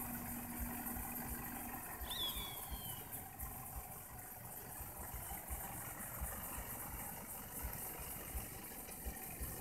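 Mitsubishi L200 Triton pickup's engine idling faintly as the truck creeps forward, under an irregular low rumble. A short high descending chirp sounds about two seconds in.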